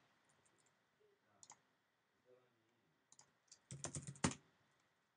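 Typing on a computer keyboard: a few scattered keystrokes, then a quick run of keystrokes about four seconds in.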